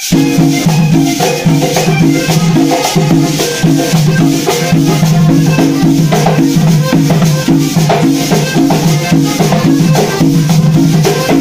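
Live cumbia played on a piano accordion over a repeating bass pattern, with hand percussion shaking and scraping a fast, even rhythm.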